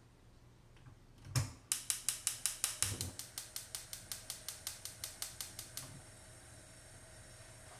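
Gas hob burner being lit: a knock as the knob is turned, then the spark igniter clicking rapidly, about six times a second for about four seconds, until the burner catches and settles into a steady soft hiss of burning gas.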